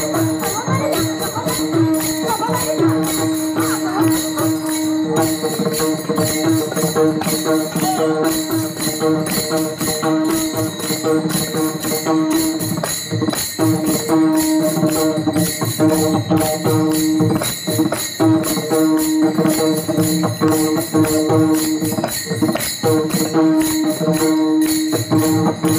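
Warkari bhajan music: many pairs of small brass taal hand cymbals struck together in a fast, steady rhythm over a steady held drone note.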